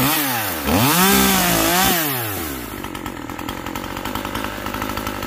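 Husqvarna top-handle chainsaw revved up and down a couple of times, then running on at a steadier, lower speed.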